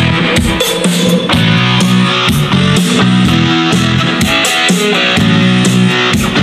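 Karaoke backing track with guitar and drums playing through an AKIXNO Bluetooth soundbar.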